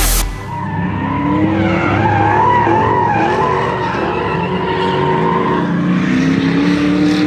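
Drift cars on a racetrack: engines revving high, rising and falling, over tyre squeal as the cars slide through the corners. Music cuts off just as it begins.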